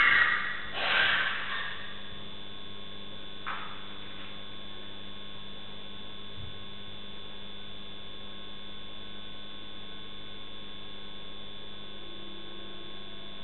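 Steady electrical mains hum with a few thin whining tones from a CCTV camera's audio, broken by a short noisy burst about a second in and a fainter one about three and a half seconds in.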